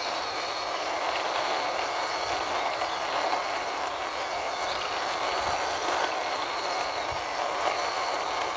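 Small toy car's wheels rolling steadily along the ground as it is pushed by hand, a continuous gritty rolling noise.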